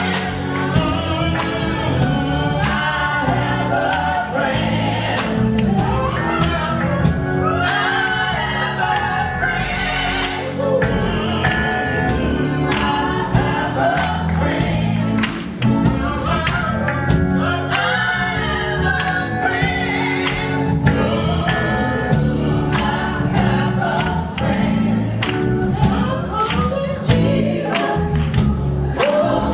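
Gospel music: a vocal group singing with band accompaniment and a steady beat.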